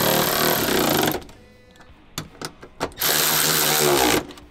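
Cordless electric ratchet driving tie-down bolts snug, in two runs: one stopping about a second in, the other starting about three seconds in and winding down near the end. A few light clicks fall in the pause between them.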